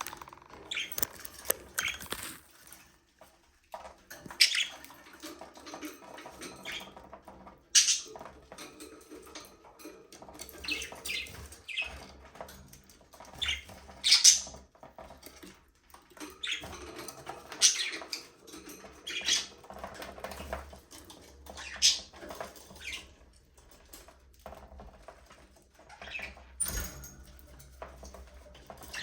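Budgerigars chirping and chattering, with short, sharp high calls coming at irregular intervals throughout.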